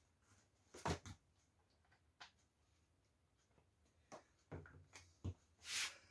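Faint, scattered knocks and clicks of handling at the stove and counter, with a short breathy hiss just before the end.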